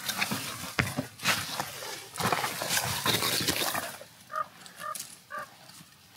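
Heavy, uneven breathing and scuffing, knocking steps of a hiker scrambling up steep rock. About four seconds in it quietens, and three short pitched notes sound about half a second apart.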